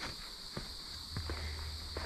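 Footsteps of a hiker walking on a dirt and leaf-litter trail, a few irregular steps, over a steady high-pitched hum; a low rumble comes in about a second in.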